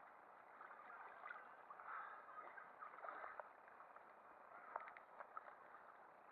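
Faint water lapping and sloshing close by, with a few small clicks.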